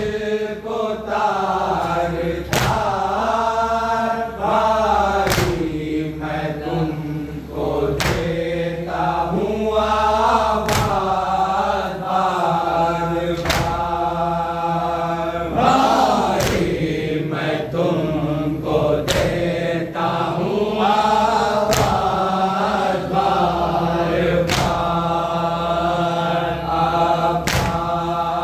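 A group of voices chanting a noha, a Shia lament for Abbas, in unison and without a break. A sharp beat cuts through about every three seconds.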